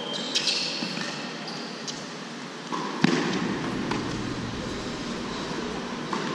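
Tennis rally on an indoor hard court: sharp pops of racquets striking the ball and ball bounces, with brief high squeaks of tennis shoes on the court early on. The loudest hit, about three seconds in, is the near player's forehand.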